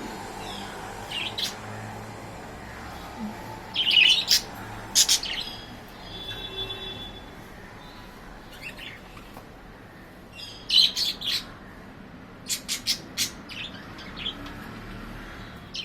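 Pet budgerigars chirping in short, scattered calls, loudest in clusters about four to five seconds in and again from about eleven to fourteen seconds, with a brief held whistle about six seconds in.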